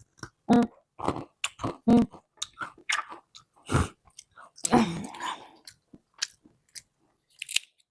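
Macadamia nuts being bitten and chewed: irregular crunches and bites.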